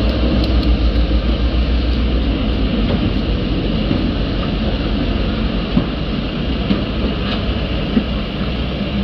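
A diesel locomotive's engine rumbling as it rolls past, fading after a couple of seconds as passenger cars follow with steady wheel-on-rail rolling noise and a few sharp clicks over the rail joints.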